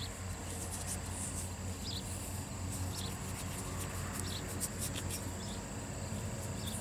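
Quiet outdoor background: a steady low hum, a faint thin high whine, and scattered soft ticks.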